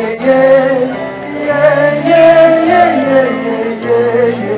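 Live concert music: a sung vocal line with long held notes over the song's backing band.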